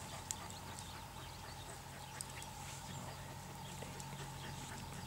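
Wood fire crackling in a small folding firebox stove, with scattered sharp pops over a steady low background.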